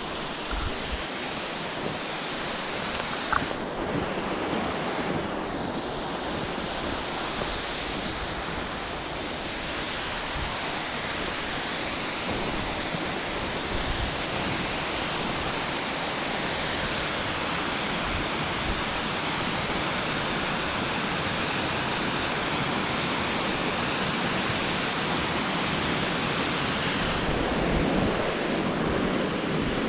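Waterfall rushing steadily, running high with much more water than usual, growing slightly louder over the stretch.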